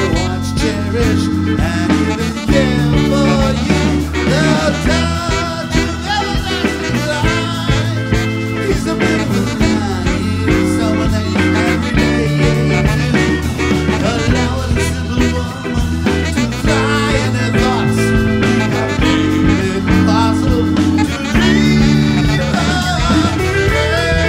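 Live band playing an upbeat ska-style number: saxophone lead over electric guitar, bass guitar, drum kit and keyboards. A man's singing voice comes in near the end.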